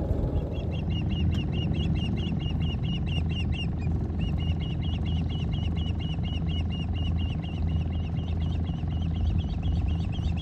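Boat motor running steadily at trolling speed, with a rapid run of short, high chirps, about four a second, pausing briefly about four seconds in.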